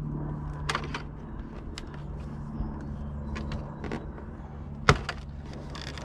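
C5 Corvette plastic door sill trim being pried up with a plastic trim tool: light clicks and scrapes, then one sharp snap about five seconds in as the last retaining clip pops loose. A low steady hum runs underneath.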